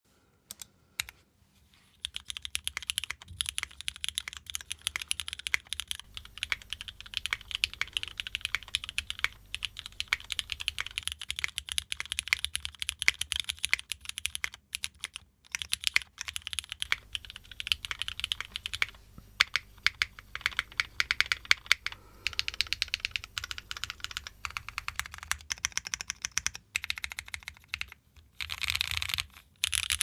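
Typing on a Neo65 mechanical keyboard with a carbon-fibre plate, no case foam, lubed and filmed Nixie switches and GMK ABS keycaps: two single key presses in the first second, then fast continuous keystrokes from about two seconds in, with a few short pauses.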